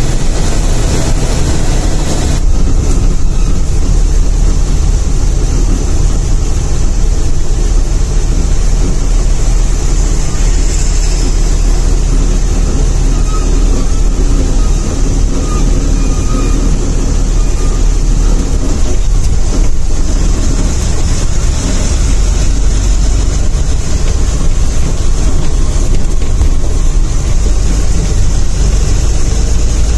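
Sleeper coach bus on the move, heard from inside the driver's cabin: a loud, steady drone of engine and tyre rumble. The sound shifts about two seconds in.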